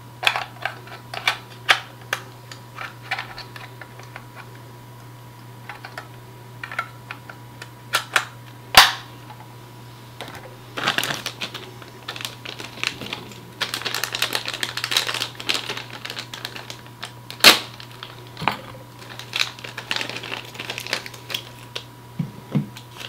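Irregular plastic clicks and taps from hands handling a small RC transmitter and its parts, with two sharp snaps, about nine seconds in and again near seventeen seconds, and stretches of rustling in between.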